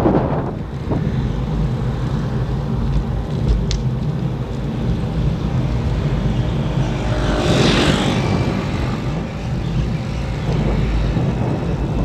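Wind buffeting the microphone of a camera on a moving road bike, a steady low rumble mixed with tyre-on-asphalt noise. A louder whoosh swells and fades about eight seconds in.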